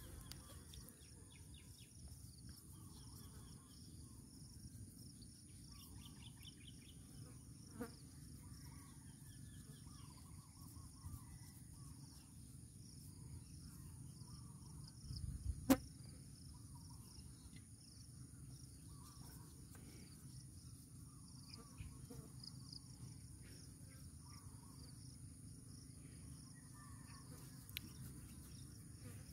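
Faint, steady chirring of insects, with a sharp click about halfway through and a few softer knocks.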